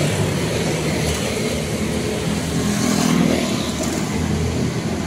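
Steady road traffic noise, swelling about three seconds in as a vehicle passes.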